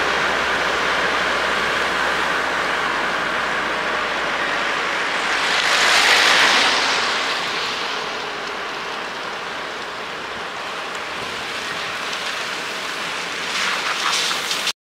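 High water in a harbour washing and splashing, a steady rush with a louder surge of surf about six seconds in and a few brief splashes near the end.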